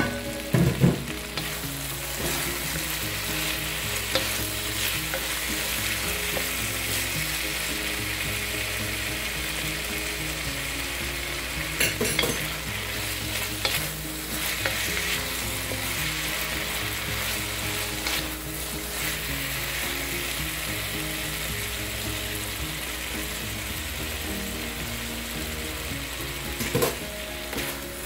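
Green beans sizzling in hot oil in a wok as a wooden spatula stirs and tosses them. There is a steady sizzle, with a few sharp knocks just after the start, about twelve seconds in and near the end.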